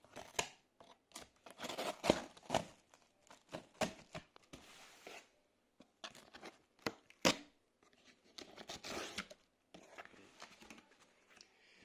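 Packaging being torn open and handled while unboxing a microphone: irregular tearing and crinkling of wrapping with sharp crackles and knocks, pausing briefly around the middle.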